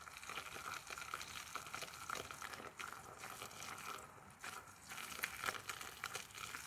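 Eggs frying in a Trangia frying pan, a faint steady sizzle full of quick little crackles and pops.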